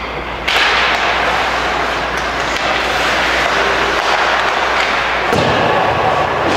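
Ice hockey play heard on a rink: a steady noisy rush with scattered knocks of sticks and puck, and a heavier thud against the boards about five seconds in.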